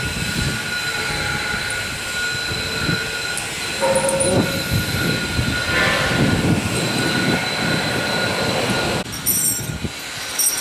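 Heavy steel tyre chains clinking and clanking irregularly as they are handled and fitted onto a snow grader's large tyre. A steady high tone runs underneath until the sound changes about nine seconds in.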